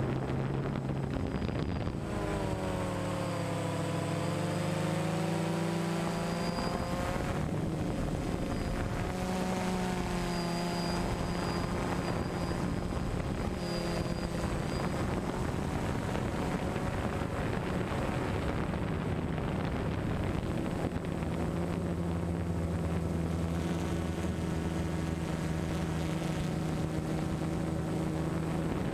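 DJI Phantom 1 quadcopter's motors and propellers whirring in flight, heard from the drone itself. The whine wavers up and down in pitch through the first half as the throttle changes, then runs steadier.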